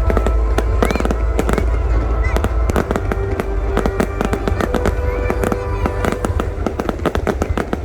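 Fireworks display: a dense, continuous barrage of bangs and crackling bursts over a deep rumble.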